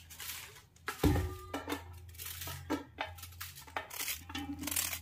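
Kitchen handling sounds: a sharp knock about a second in with a short metallic ring, then scattered knocks and clinks of pots and utensils over a steady low hum.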